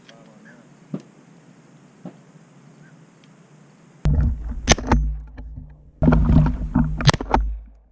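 Two shotgun shots about two and a half seconds apart, amid heavy rumbling wind and handling noise from a gun-mounted camera as the gun swings. Before them the marsh is quiet apart from a couple of small clicks.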